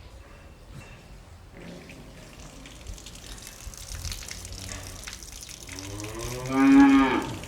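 Cow barn ambience: low background rustle and shuffling, a faint low call about two seconds in, then a cow mooing loudly near the end in one long call that falls in pitch.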